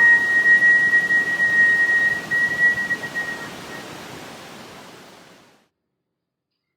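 Final long held note of a whistled melody, one high pure tone that fades away over about three seconds, over a steady hiss. The hiss fades out to silence about five and a half seconds in.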